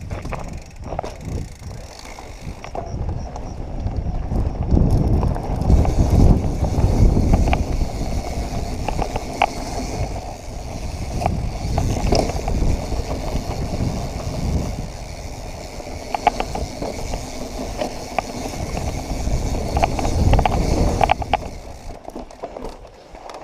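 Santa Cruz Hightower full-suspension mountain bike riding over a rough dirt trail: tyres rumbling over rocks and gravel, with scattered clicks and rattles from the bike. The rumble grows loudest twice, for a few seconds early on the way through and again later, then eases near the end.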